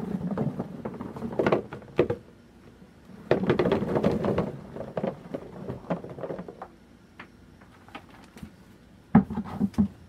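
Red potatoes poured from a plastic tub into a plastic box, tumbling and knocking against the plastic and each other in two pours in the first half. Scattered single knocks follow, then another brief clatter near the end.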